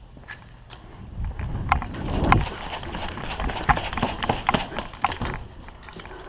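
Running footsteps on the ground with the jolt and rattle of carried gear: a string of irregular knocks, about two strong ones a second, over a low rumble, starting about a second in and dying away near the end.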